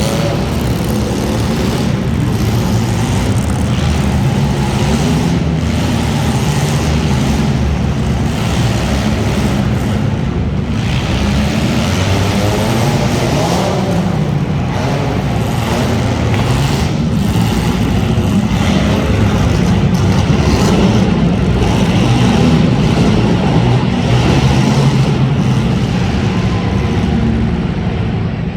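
Several front-wheel-drive demolition derby cars' engines revving and running hard together, their pitch rising and falling, with scattered knocks and bangs from cars hitting each other.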